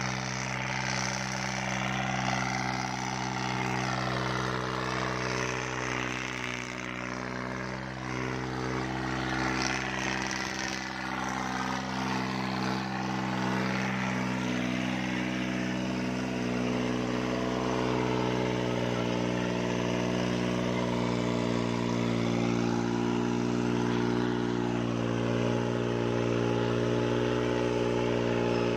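A New Holland 3630 tractor's three-cylinder diesel engine running steadily under load as it pulls a disc harrow through the soil. It grows a little louder in the second half.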